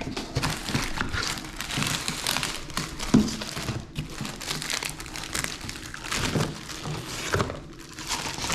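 Packaging crinkling and rustling with scattered light knocks as the parts of a flat-pack chair are unpacked by hand.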